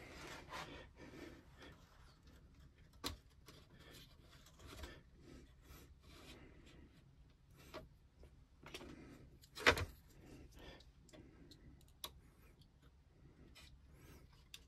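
Small wooden parts being handled and pushed into a laser-cut plywood model-ship frame: light clicks, taps and rubbing of wood on wood. There is a sharper knock about three seconds in and a louder one near ten seconds.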